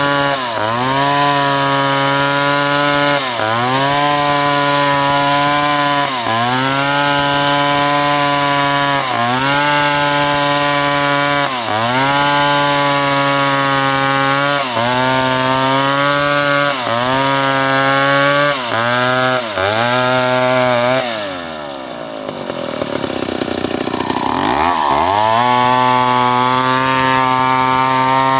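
Chainsaw engine running at high revs while cutting wood. Its pitch sags and recovers every two to three seconds as the cuts load it. About three-quarters of the way through it drops to low revs for a few seconds, then revs back up and carries on.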